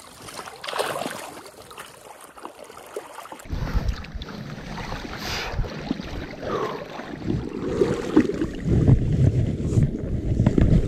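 River water sloshing and splashing close to the microphone, with wind on the microphone; about three and a half seconds in the sound turns suddenly muffled and rumbly and grows louder toward the end.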